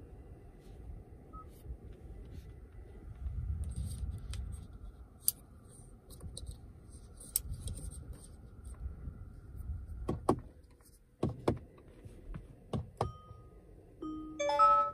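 Handling noise and sharp plastic clicks of the Kia Stinger's round dashboard air vents being turned and adjusted by hand, with several loud clicks close together about ten seconds in. Near the end an electronic chime sounds as the start button is pressed.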